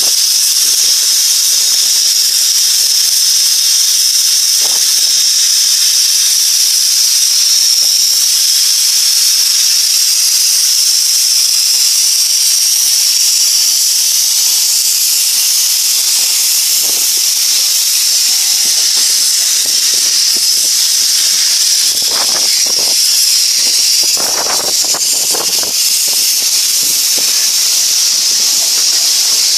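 Steam hissing loudly and steadily from a 15-inch-gauge steam locomotive as it moves off, with steam blowing out low at the front from its open cylinder drain cocks. A few faint knocks near the end.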